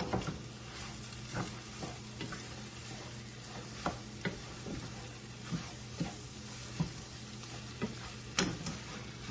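Boiled noodles being stirred and tossed with scrambled egg in a frying pan, sizzling softly, with irregular light knocks of the utensil against the pan.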